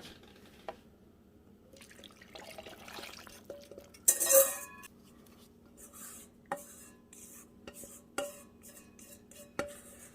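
A kitchen utensil stirring sliced cucumber and tomato salad in its vinegar dressing: scattered clinks and knocks against the container and short scrapes, with one louder clatter about four seconds in.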